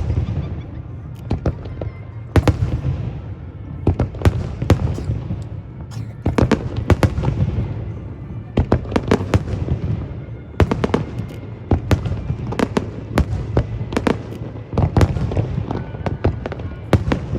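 Aerial fireworks bursting in rapid succession: many sharp bangs, often in quick clusters, with crackle and a continuous low rumble beneath.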